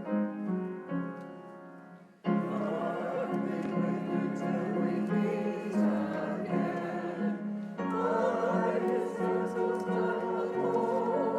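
Church music: held keyboard chords fade out over about two seconds. Then a louder passage of singing voices with keyboard accompaniment starts abruptly.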